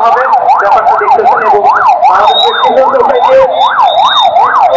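Electronic siren in a fast yelp, its pitch sweeping up and down about three times a second, sounding the emergency alarm for an earthquake and fire drill.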